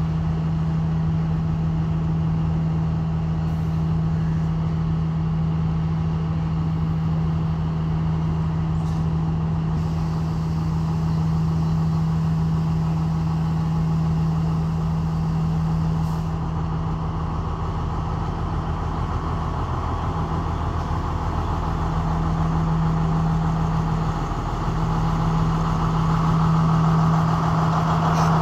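Sri Lanka Railways Class S12 diesel multiple unit's power-car engine running with a steady low drone as the train moves slowly out, growing louder over the last few seconds as the power car comes alongside.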